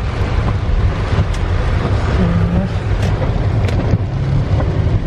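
Heavy rain falling on a car, heard from inside the cabin over a steady low rumble of the car and the wet road, with a few sharp ticks.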